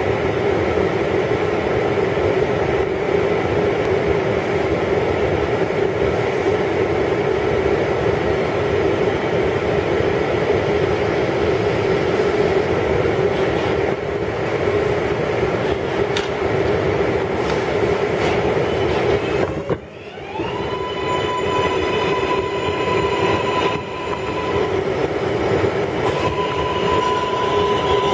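Inside a Kawasaki R142A subway car running at speed: a steady rumble of wheels on track with a droning hum. About 20 seconds in the noise briefly drops, then the car's electric traction drive starts a whine that climbs in pitch and settles on a steady high tone, and near the end it begins to climb again.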